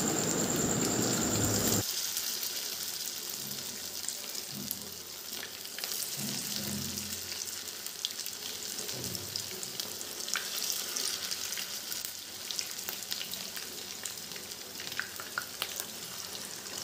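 Batter-coated chicken pieces frying in hot oil in a kadai: a steady sizzle with scattered small crackles and pops. It gets abruptly quieter about two seconds in, then carries on evenly.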